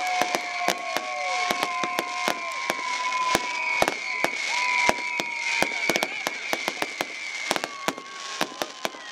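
Fireworks display: a rapid, irregular string of sharp bangs and pops from bursting aerial shells and comets, several a second. Steady whistles run underneath and fade out near the end, and the whole volley grows gradually quieter.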